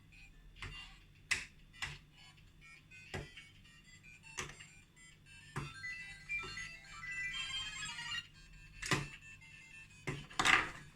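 LEGO Super Mario interactive figure being hopped onto plastic LEGO bricks with a series of sharp clacks. Its small speaker plays chirpy electronic game sound effects, with a short jingle about halfway through.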